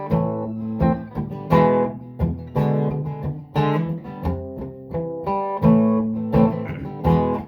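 Instrumental break in a song: guitar chords strummed in a steady rhythm, without vocals.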